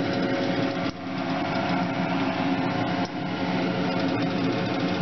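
Steady motor hum of a kitchen exhaust fan, over pancake batter sizzling in a frying pan; the sound dips briefly twice.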